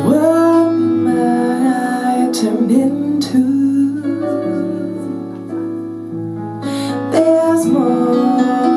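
A woman singing a slow jazz ballad in long, held notes that swoop up at the start and waver slightly, over a soft, steady instrumental accompaniment. A new phrase enters about seven seconds in.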